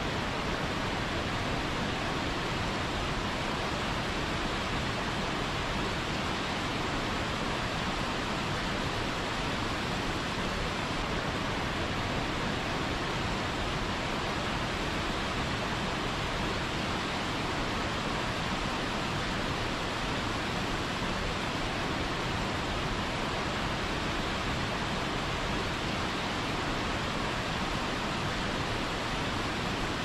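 Waterfall pouring onto rocks into a pool: a steady, unbroken rush of falling water.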